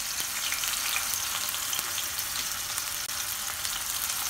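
Chopped onion, tomato, scallion and thyme frying in hot oil in a stainless steel pot: a steady sizzle with scattered small crackles.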